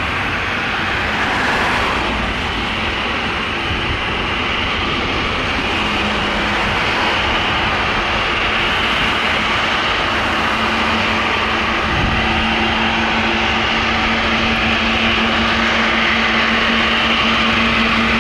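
Airbus A340-300's four CFM56-5C turbofans running at taxi power: a steady jet rush and whine. A low steady hum comes in about six seconds in and grows stronger in the second half as the jet draws nearer.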